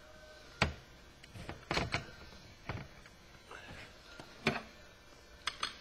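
Sharp metal knocks and clanks as a fuel cell's metal top plate and fittings are handled and seated on the fuel cell can, several separate hits with the loudest about half a second in and again about two thirds of the way through.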